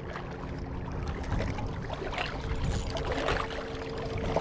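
A steady low mechanical hum, like an engine running, with scattered small clicks and rustles over it.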